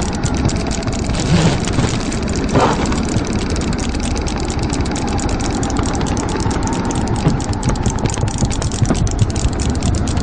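Knitting needles clicking in a fast, unbroken clatter over a steady low rumble.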